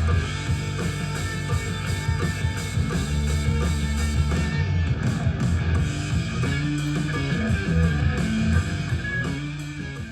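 Rock music with guitar, drums and heavy bass, played back through a portable Bluetooth speaker under test. About halfway through the treble thins out, and the music fades away at the end.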